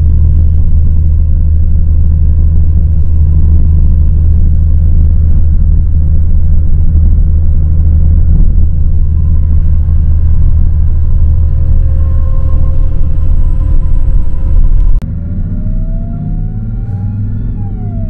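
Intercity bus running on the road, heard from inside the cabin: a loud, steady low rumble of engine and tyres with a faint whine. About 15 seconds in, it changes abruptly to a quieter run in which the engine note rises and then falls.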